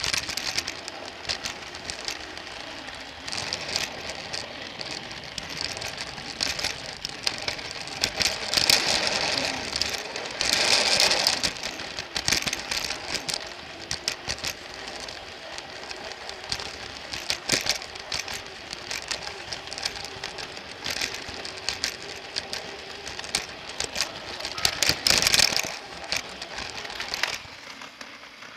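Battery-powered Plarail toy train heard from on board, running on plastic track. The small electric motor and gearbox whirr steadily under irregular clicking and rattling from the wheels and track joints. The noise swells in a couple of louder stretches and dies away about a second before the end, as the train stops.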